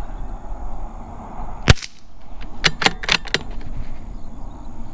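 A single .22 LR rifle shot from a Ruger Precision Rimfire bolt-action rifle, sharp and brief, about a second and a half in. About a second later comes a quick run of four metallic clicks as the bolt is worked to eject the case and chamber the next round.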